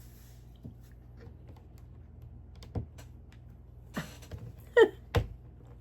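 Small plastic Lego pieces clicking and knocking as they are handled and pried apart: a handful of separate sharp clicks, the loudest two near the end.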